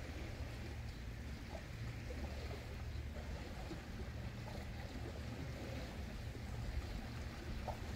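Wind buffeting the microphone in a steady low rumble, with faint lapping and trickling of small waves among shoreline rocks.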